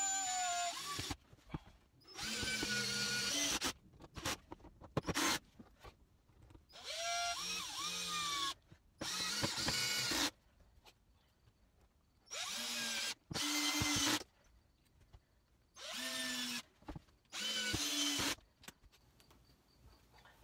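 Cordless drill driving screws to fasten hinges onto a step box, run in about eight short bursts of one to two seconds, the motor whining up in pitch at the start of each run.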